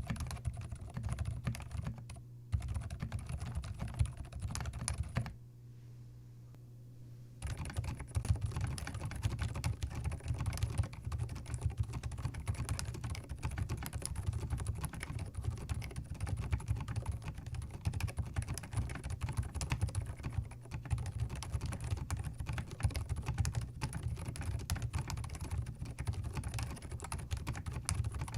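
Typing on a Zoom TKL mechanical keyboard fitted with WS Silent linear switches: rapid, continuous keystrokes, with a pause of about two seconds roughly five seconds in.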